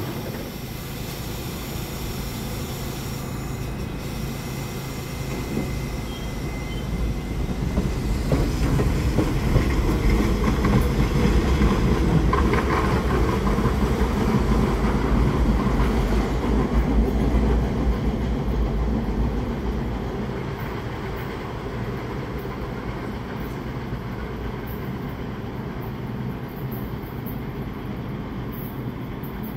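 R68A subway train pulling out of the station and running away down the track: motors and wheels on the rails, building to its loudest about halfway through, then fading into the distance.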